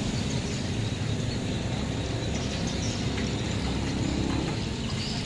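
Steady outdoor background noise with a low rumble, with no distinct events standing out.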